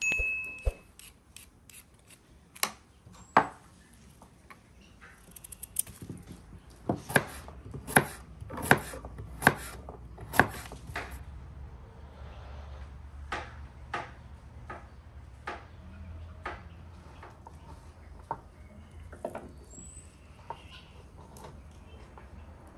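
Knife cutting vegetables on a wooden board: scattered sharp knocks, with a run of loud, evenly spaced chops, a little under one a second, partway through.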